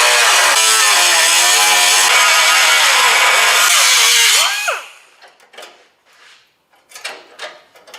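A power cut-off tool cutting through car-body sheet steel, its motor pitch wavering under load. About four and a half seconds in it stops and spins down with a falling whine, followed by a few light clicks and taps.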